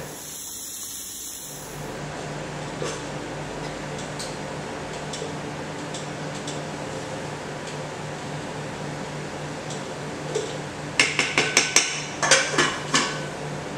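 A quick run of clinks and knocks near the end as a spoon and the lid are handled against a rice cooker's pot while the rice is stirred, over a steady low hum.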